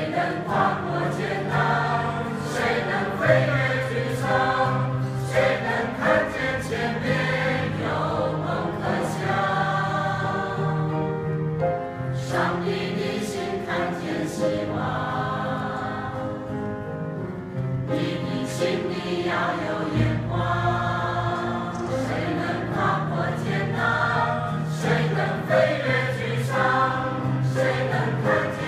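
Mixed choir of men's and women's voices singing a hymn in Chinese, continuously.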